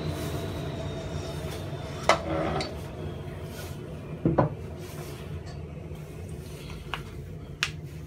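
Bandsaw running steadily, with two sharp knocks about two and four seconds in and a few lighter clicks later, as blocks of spalted beech are handled on its metal table.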